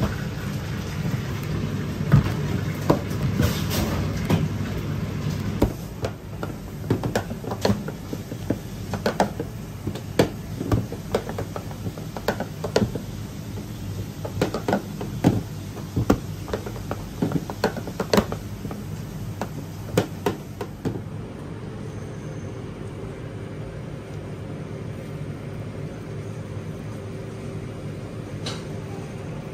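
Irregular clacks and taps of a small wooden rolling pin against a stainless steel counter as dumpling wrappers are rolled out, several a second, over a steady low kitchen hum. The tapping stops about two-thirds of the way through, leaving the hum and a faint steady tone.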